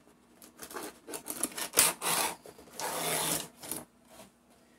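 Cardboard box and packaging scraping and rubbing as the wooden nesting dolls are slid out of it: a few short rasping rubs, the longest about two and three seconds in, with small clicks between.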